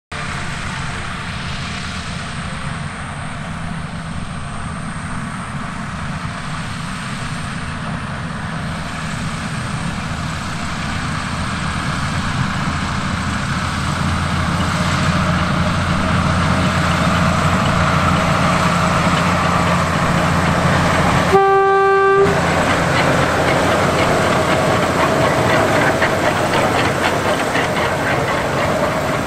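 Diesel locomotive on a sugar cane tramway hauling empty cane bins, its engine running steadily and growing louder as it comes close. It gives one short horn toot about two-thirds of the way through.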